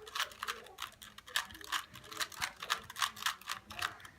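Plastic Rubik's Cube layers clicking and clacking as they are twisted in quick succession, an uneven run of sharp clicks about four a second.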